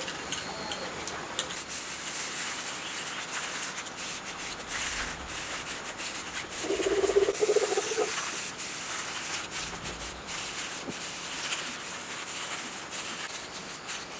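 Aerosol spray-paint cans hissing in repeated short bursts as paint is sprayed onto small diesel-engine parts, with the can's mixing ball rattling as it is shaken near the start. About halfway through there is a brief, louder hum lasting about a second.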